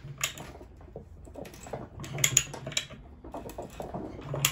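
Ratcheting pipe threader cutting threads on a metal pipe: irregular clicking and scraping from the ratchet and the die's cutting teeth as the pipe nears the end of the die, with sharper clicks about two seconds in and near the end.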